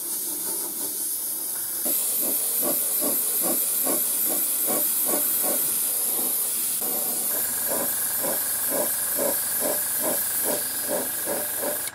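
Airbrush spraying a flat black base coat: a steady air hiss that gets louder about two seconds in, with a fast, even pulsing of about three beats a second underneath.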